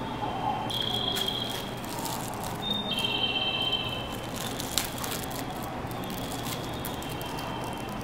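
Plastic snack wrapper crinkling and crackling in the hands in a run of quick irregular crackles, with one sharp tick near the middle, over faint steady high tones that come and go.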